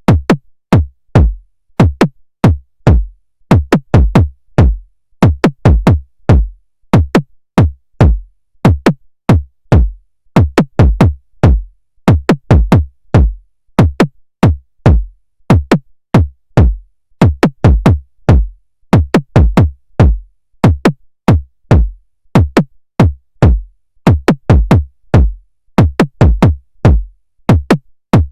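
Drum-machine beat: punchy electronic kick-drum hits with a sharp click on top, about two a second in an uneven repeating pattern, with silence between hits.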